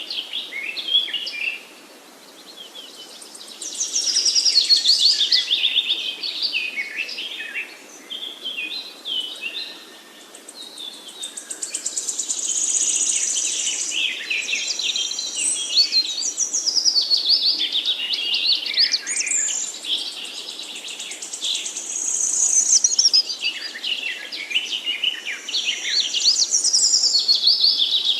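Songbirds singing in a forest: long phrases of rapid high chirps, whistles and trills that overlap and pause briefly between outbursts.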